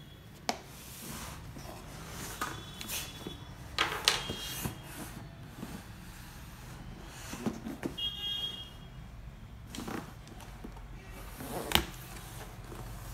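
Cardboard laptop box being handled: scattered knocks, scrapes and rubbing of cardboard, with a few brief high-pitched squeaks, over a low steady hum.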